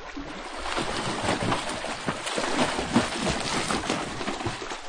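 Dolphins splashing hard at the surface, a continuous churning rush of water with many small slaps and spatters.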